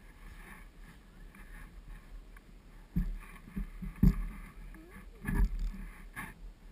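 Wind rumbling on the microphone, with several loud knocks and bumps about three, four and five and a half seconds in as someone right beside the camera brushes against it.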